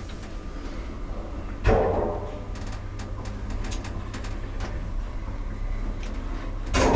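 ThyssenKrupp lift with a steady low hum, a sudden loud clunk with a short ringing decay about two seconds in, another near the end, and small clicks between.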